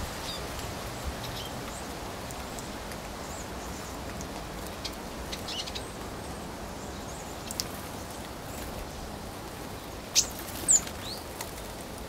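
Small birds giving short, high calls scattered over a steady outdoor background hiss, with two louder calls close together near the end.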